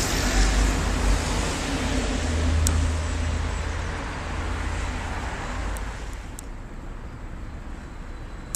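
Road traffic: a vehicle passing on the road with a rushing tyre-and-engine noise and a low rumble, loudest in the first few seconds and fading away after about six seconds.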